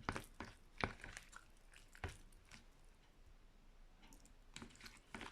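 Faint, irregular clicks and taps of a spoon stirring chopped garlic and dried figs in olive oil, with a quieter pause in the middle.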